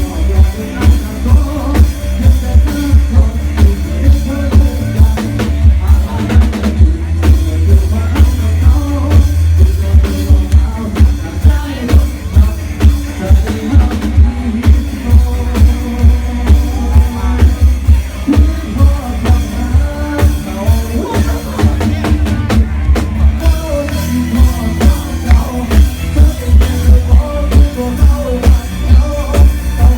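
Loud dance music played through a Thai parade sound-truck (rot hae) system, heavy in bass, with a steady kick-drum beat about twice a second.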